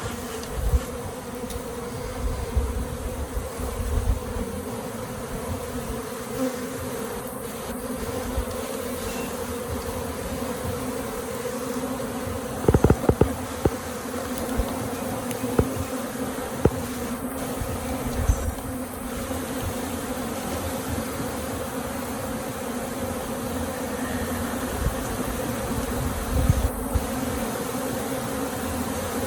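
A swarm of honey bees buzzing as a steady, even hum while the swarm is scooped and shaken into a hive. There is low handling noise, and a quick cluster of knocks comes about thirteen seconds in.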